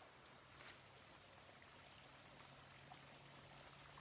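Near silence: faint background hiss with no distinct event.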